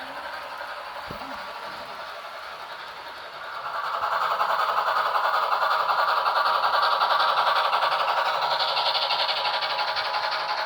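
A motor running steadily, rising sharply in loudness about three and a half seconds in and staying loud.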